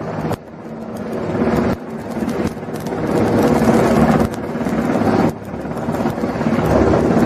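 Rushing wind and sea noise over a steady machinery hum, as recorded on a warship at sea. The noise swells and then drops off sharply about five times.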